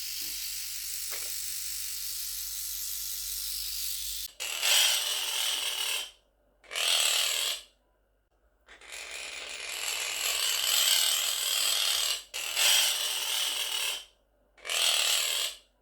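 Quaker parrot imitating the buzz of a trimmer in five noisy bursts of one to three and a half seconds each, with short silences between them. A steady hiss runs for about the first four seconds.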